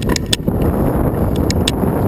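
Wind buffeting the microphone while riding, a steady low rumbling rush, with a few sharp clicks near the start and two more about one and a half seconds in.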